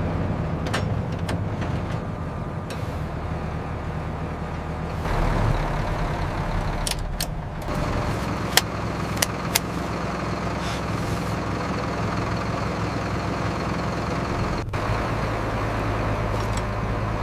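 A large machine's engine running steadily, with a few short sharp clicks and knocks around the middle.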